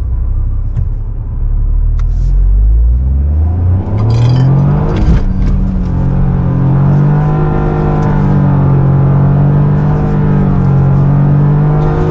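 Toyota GR Yaris's turbocharged three-cylinder engine, heard from inside the cabin, revving up over the first few seconds, then held at high revs with small rises and dips while the car drifts.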